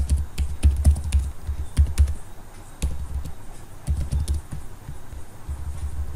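Typing on a computer keyboard: uneven bursts of key clicks, with a pause of about a second and a half in the middle.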